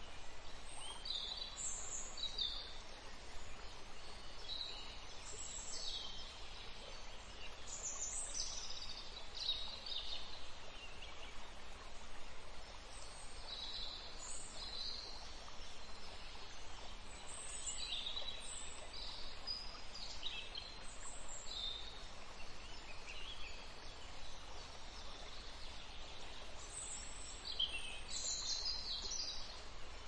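Forest ambience: several small birds chirping and calling in short, high phrases, scattered irregularly, over a steady background hiss.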